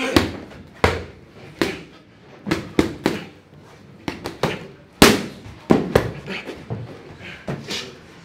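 Boxing gloves smacking into a trainer's focus mitts in pad-work combinations: sharp slaps, singly and in quick runs of two or three, around fifteen in all.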